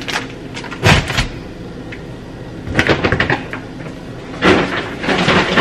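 Grocery items being handled: a few knocks and clatters as packages are set down, with a low thump about a second in, a cluster of clicks around the middle and some rustling near the end.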